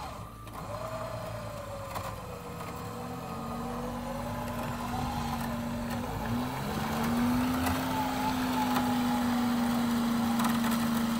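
A winch pulls an off-roader out of a snowy creek with a steady hum. The hum stops briefly a little after six seconds in, then starts again and gets louder toward the end.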